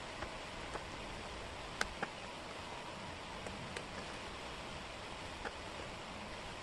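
Wooden jigsaw puzzle pieces clicking faintly as they are handled and fitted, with a few irregular sharp clicks over a steady hiss.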